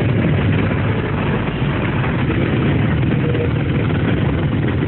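Vehicle engines idling in a traffic jam: a steady low hum under an even hiss.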